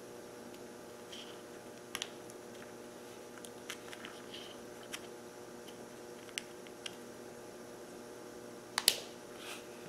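Scattered light clicks and taps of the plastic sections of a Mercury outboard impulse fuel pump being handled and worked apart by hand while the old parts and gaskets are removed, with a sharper double click near the end.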